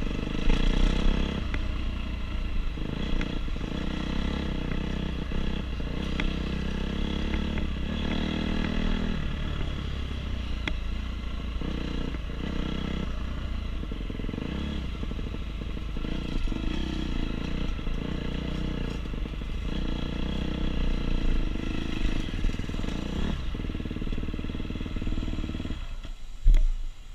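Two-stroke 250SX dirt bike engine running under the rider, revs rising and falling repeatedly as it is ridden over the course, with some clatter. The engine sound drops away sharply near the end.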